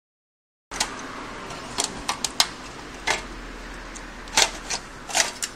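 Sharp, irregular clicks and light clatters, around ten of them starting about a second in, as a PS3 Slim Blu-ray drive is handled and its metal top cover is worked loose and lifted off.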